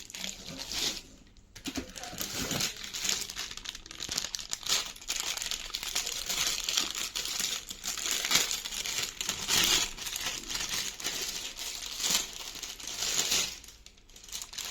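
Packaging being handled and crinkled during a printer unboxing: continuous dense crinkling and rustling that fades out shortly before the end.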